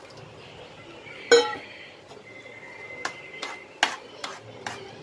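A steel vessel clanks once against the pan about a second in, with a short ring. Then a metal spoon stirring the thick bhaji knocks against the sides of the pan several times, about twice a second.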